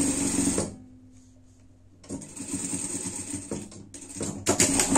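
Electric sewing machine stitching a seam through thick fleece and foam in three short runs: one that stops under a second in, another in the middle, and a last, louder one near the end, with pauses as the fabric is repositioned.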